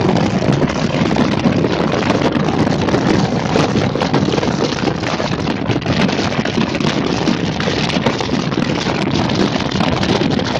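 Steady rushing noise of a moving vehicle, road and wind noise together, at an even level throughout.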